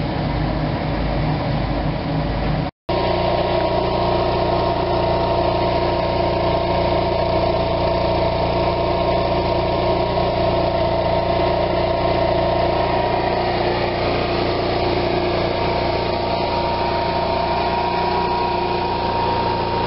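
Motorhome's onboard generator running at a steady pace, a constant engine hum with a higher steady whine above it. The sound breaks off for a moment about three seconds in and then carries on unchanged.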